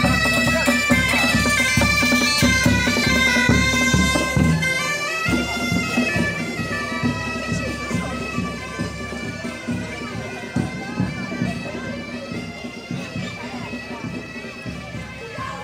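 Galician bagpipes (gaitas) playing a folk melody over their steady drone, with a bass drum and snare drum beating along. The band grows gradually fainter from about four seconds in.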